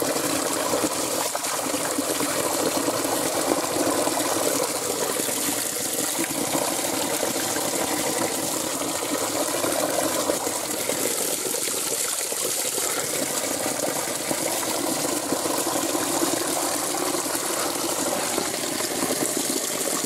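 Shallow snowmelt rivulet running steadily over gravel and stones.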